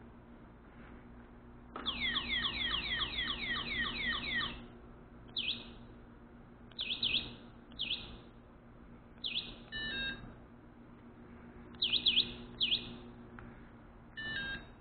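Electric scooter's remote-controlled alarm unit chirping as its key fob is used: a rapid run of identical falling electronic chirps, about four a second for a few seconds, then single and paired chirps. Twice there are short stepped electronic beeps.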